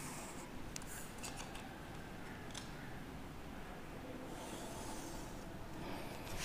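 Chalk scraping on a blackboard as lines are drawn along a set square: a few faint scratchy strokes with some light clicks between them.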